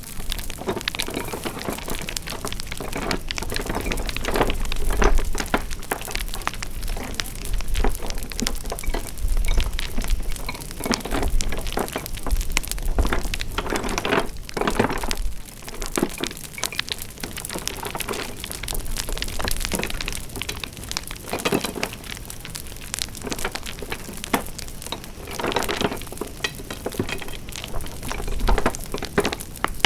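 Wood fire crackling: a continuous patter of small pops and snaps, some louder cracks standing out, over a low rumble.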